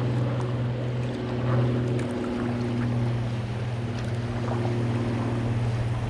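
A steady low hum from a small motor, with a few fainter overtones, over a haze of water noise.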